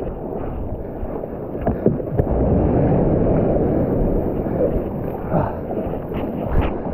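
Wind buffeting the microphone and water against a kayak's hull, a steady rushing, with a few sharp taps near the end.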